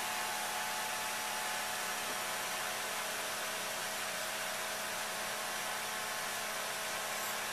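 Steady machine hiss with a faint hum underneath, unchanging throughout.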